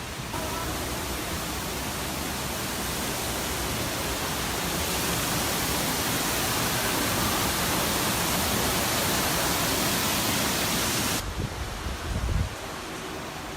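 Steady rushing of falling water, like a waterfall close by. It grows slightly louder, cuts off suddenly about eleven seconds in, and a few low thumps follow.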